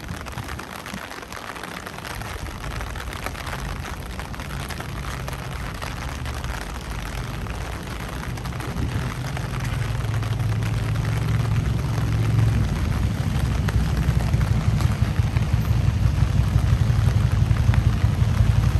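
Steady hiss of rain on a city street, with a low rumble that builds from about halfway through and stays loud to the end.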